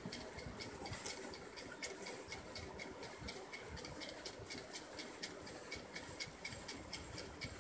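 Faint, irregular clicks, taps and scratchy rustles of a cardboard smartphone box being handled, several a second.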